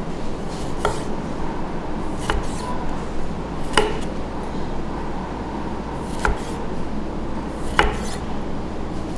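Kitchen knife cutting limes on a wooden chopping block: five sharp knocks of the blade striking the wood, about one every second and a half, over a steady background noise.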